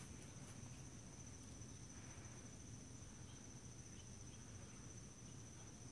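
Near silence with a faint, steady, high-pitched insect trill.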